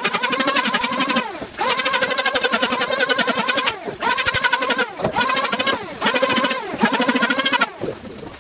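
Electric hand planer run in about six short bursts of one to two seconds each. At the end of each burst its motor spins down with a falling pitch.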